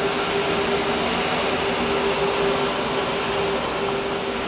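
Airbus A340-600's Rolls-Royce Trent 500 jet engines running at taxi power: a steady whine over an even rush of jet noise.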